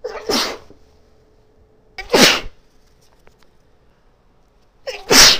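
A woman sneezing three times, about two and a half seconds apart, each a short intake followed by a sharp, loud burst. The sneezes are brought on by snuff.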